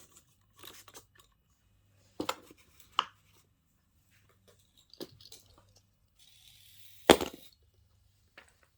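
Fidget toys being handled and set down: a few scattered knocks and clicks, the loudest near the end, with a short rustle just before it.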